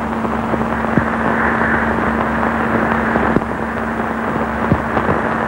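Steady hiss with a constant low hum and a few scattered clicks and crackles, typical of an old, worn film soundtrack with no dialogue or music.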